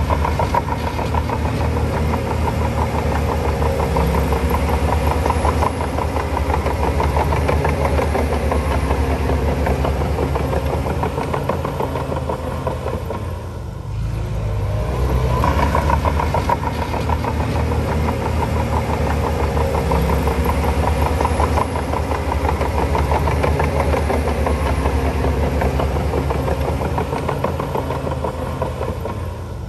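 Shantui crawler bulldozer's diesel engine running hard under load, a heavy, steady rumble that eases off briefly about halfway through and again near the end.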